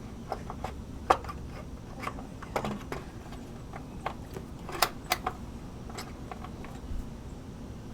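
Irregular light clicks and taps from handling a motorcycle's oil tank filler cap and dipstick while the oil level is checked, the sharpest about a second in and twice around five seconds in.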